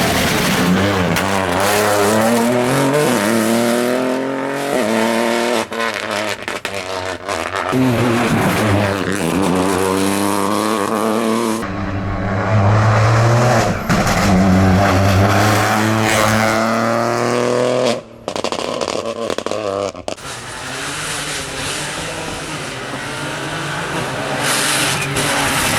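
Rally car engine driven hard, revving up and shifting up through the gears several times, the pitch climbing and then dropping at each change. About three-quarters of the way through the sound breaks off briefly and carries on as a rougher, noisier engine sound with fewer clear tones.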